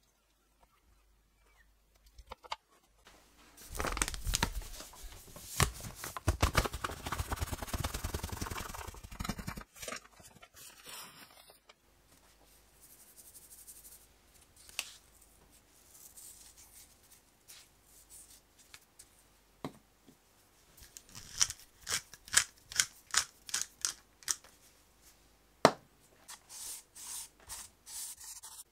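Kitchen food-prep handling noises: a long crackling, rustling stretch, then a run of sharp clicks and taps.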